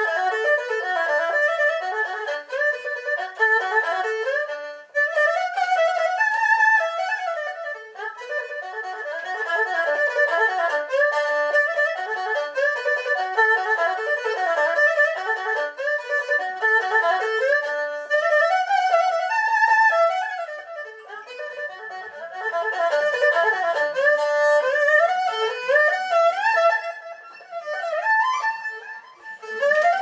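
Solo erhu bowed, playing a lively melody of quick runs and sliding notes, phrase after phrase with brief pauses between.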